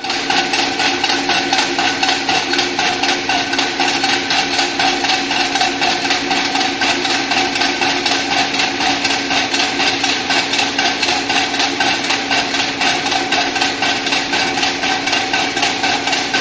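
Belt-driven piston air compressor running and pumping air: a fast, even pulsing over a steady hum.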